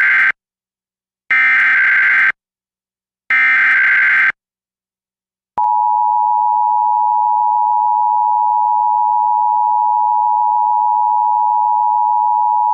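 Emergency Alert System header: loud one-second bursts of screechy digital data tones, one second apart, the first already under way, then two more. After a short pause comes the steady EAS two-tone attention signal, held unchanged for about eight seconds.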